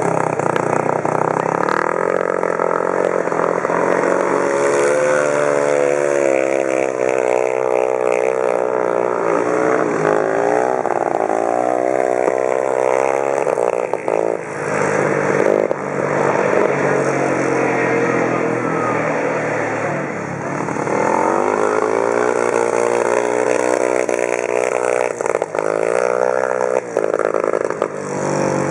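Speedway motorcycle's single-cylinder 500 cc methanol engine racing around the dirt oval, its pitch rising and falling repeatedly as the throttle is worked through the bends and straights.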